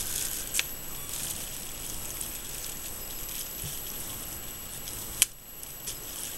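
Low steady background noise with a faint high whine, and one sharp click about five seconds in.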